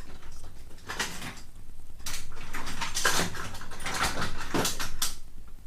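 A hand tool prising and scraping at the plastic casing of a small submersible water pump: a run of irregular scrapes and creaks, louder from about two seconds in.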